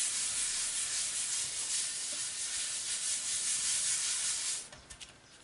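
Palms rubbing firmly back and forth over cardstock, pressing a glued panel flat onto a card: a steady papery rubbing that stops about four and a half seconds in.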